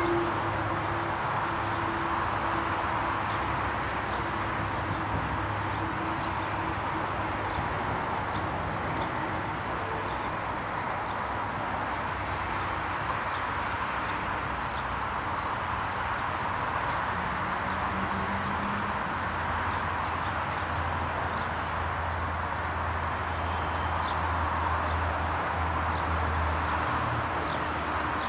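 Steady outdoor background noise with a low hum underneath and faint bird chirps now and then.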